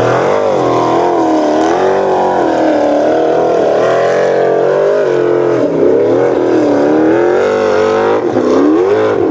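A Formula Offroad buggy's engine revving hard under load as it climbs a steep sand hill. The pitch rises and falls over and over, about once a second.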